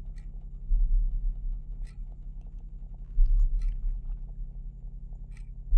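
A low rumbling drone that swells about every two and a half seconds, with a few faint small clicks and rustles over it.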